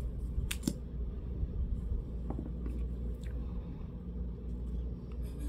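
Steady low hum with a few light clicks and taps from handling makeup, two sharper clicks in the first second and fainter ones later.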